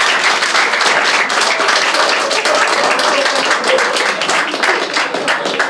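Audience applauding: many people clapping densely together.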